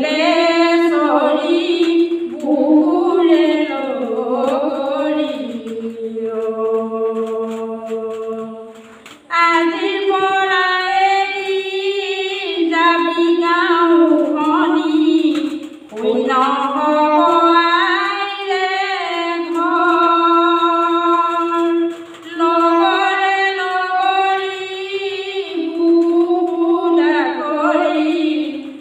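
A woman singing an Assamese folk song (lokageet) unaccompanied, in long drawn-out, wavering phrases with short breaks for breath between them.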